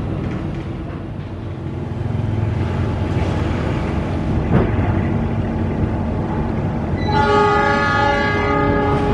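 Passenger train's coaches rolling past over the rails with a steady low rumble. About seven seconds in, the train's horn sounds one steady blast lasting about two seconds, signalling its departure.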